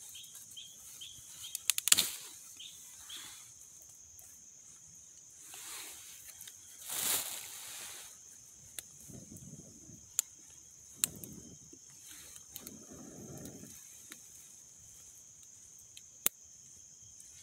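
A small wood cooking fire crackling quietly, with a cluster of sharp pops about two seconds in and single pops now and then. Behind it a bird chirps repeatedly for the first few seconds, a faint steady high hum runs throughout, and there is a brief rush of noise about seven seconds in.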